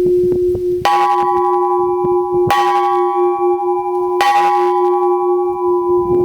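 Bell made from a recycled carbon-steel compressed-air cylinder, struck three times about a second and a half apart. Each strike adds bright higher tones over a deep hum that keeps ringing throughout.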